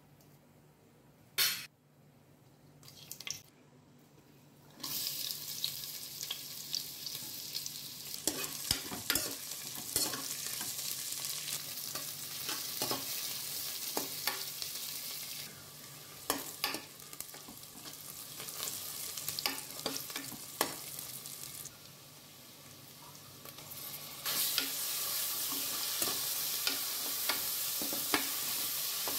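Sliced onions, garlic and whole spices frying in hot oil in an aluminium pressure cooker, with a steady sizzle and a steel ladle stirring and knocking against the pan. The sizzle starts suddenly about five seconds in, eases off for a while past the middle, then grows louder again near the end.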